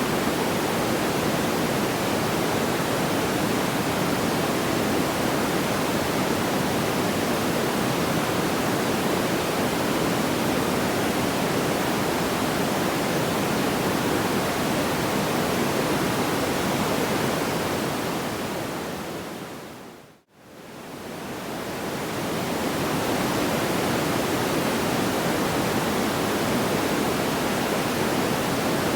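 Steady, even rushing noise like pink noise, with no separate crackles or pops. About twenty seconds in it fades smoothly down to near silence and straight back up, as at a loop seam.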